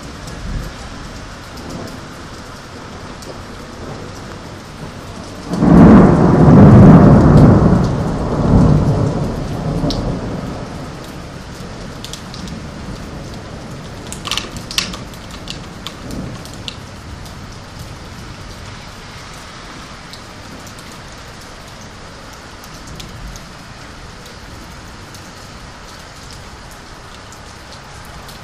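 Steady rain with thunder: about five seconds in, a loud clap starts suddenly and rumbles for about five seconds, swelling a second time before it fades back into the rain.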